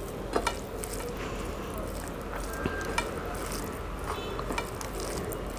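Fingers mixing cooked rice with fried greens on a plate: faint soft squishing with a few light clicks, over a steady low hum.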